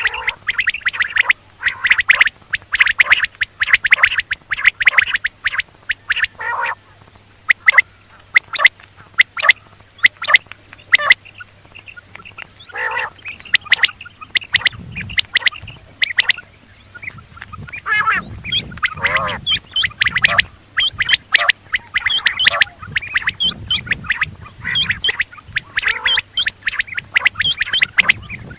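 Quail calling: rapid runs of short, sharp notes, densest in the first few seconds, thinning out for a while, then picking up again. A faint steady low hum runs underneath.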